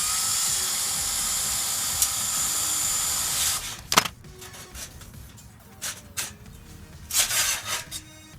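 Power drill spinning up with a short rising whine, then running steadily for about three and a half seconds before stopping, loosening the bolts of the bike's steel shipping cage. A sharp metallic clink follows, then a few lighter knocks.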